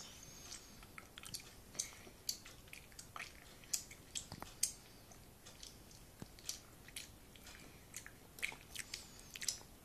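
A young boy chewing gum with his mouth partly open, making short, wet, irregular smacking clicks at roughly two a second.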